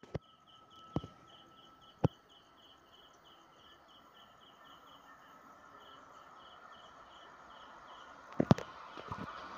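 Quiet trackside ambience: a steady run of high chirps, about four a second, over a faint background hiss, with a few sharp clicks in the first two seconds and a louder double knock near the end. Near the end the noise begins to rise as an electric train approaches.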